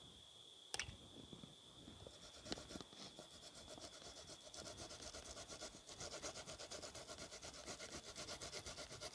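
Green bananas being grated by hand on a metal grater: a steady run of quick, rhythmic rasping strokes that builds from about two and a half seconds in, with a couple of sharp taps before it.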